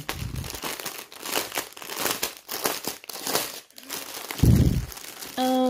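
Plastic packaging crinkling and rustling as it is handled, with a soft low thump about four and a half seconds in.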